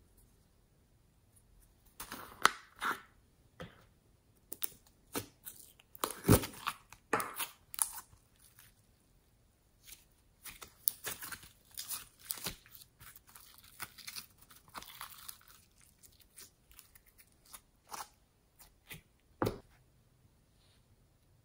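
Pink glitter slime being pulled out of its plastic jar by hand, making sticky crackling and tearing sounds in irregular bursts. These are busiest from about two to fifteen seconds in, with a few separate clicks near the end.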